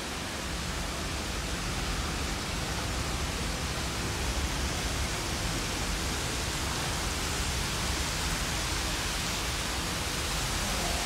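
Steady rushing noise of storm water pouring into a subway station, an even wash that swells a little about a second in and then holds.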